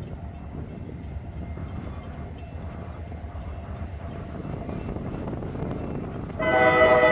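Low rumble of an approaching diesel locomotive, then its air horn sounds loudly about six seconds in, a steady multi-note chord that starts suddenly.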